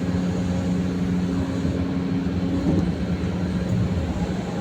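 Excavator's diesel engine running steadily, an even low hum.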